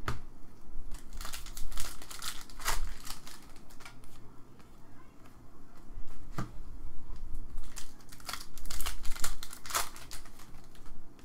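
Foil trading-card pack wrapper crinkling and cards rustling against each other as a pack is opened and its cards handled, in two spells of crackly rustling a few seconds apart.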